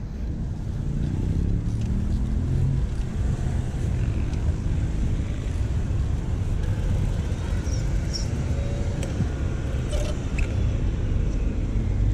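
Car traffic close by: engines and tyre noise of cars moving beside the bike lane, a low, dense rumble that gets louder about half a second in. A few short clicks come later.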